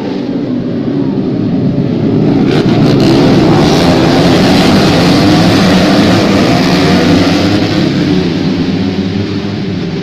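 Racing motorcycles at full throttle passing by, the engine noise rising to a peak midway through and fading away again.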